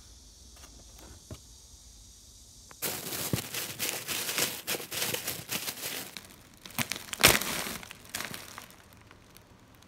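Plastic bag crinkling and crackling as a hand rummages through it, starting about three seconds in, with one sharp louder crackle near the end.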